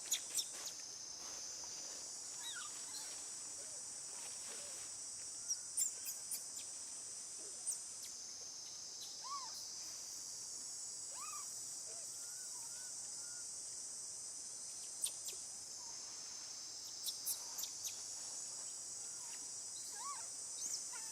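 Steady high-pitched insect drone, with short chirping calls scattered through it and a few sharp clicks.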